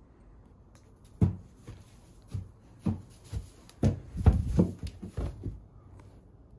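Irregular dull thumps and rustling of movement in a horse stall bedded with shavings: about ten soft knocks, heaviest around the middle, from handling and steps.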